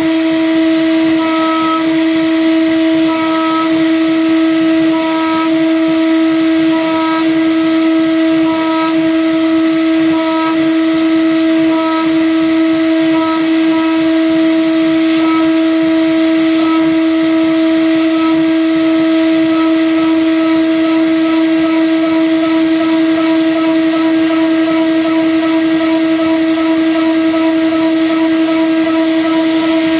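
Milling machine with a large face-milling cutter cutting metal: a loud, steady machining whine with one strong tone, over which a higher tone comes and goes every second or two.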